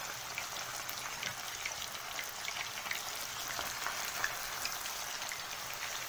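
Bran-coated liver slices deep-frying in a pan of very hot oil: a steady sizzle with many small crackles and pops throughout.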